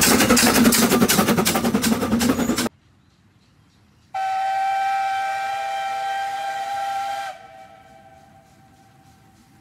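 Jiayang C2-class narrow-gauge steam locomotive working close by, with loud hissing and rapid clatter that cuts off abruptly. Then a steam whistle blows one steady note for about three seconds and drops to a faint tail that fades away.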